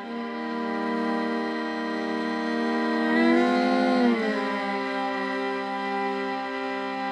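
Slow, sad background music of long held notes, with a sliding note change about three seconds in.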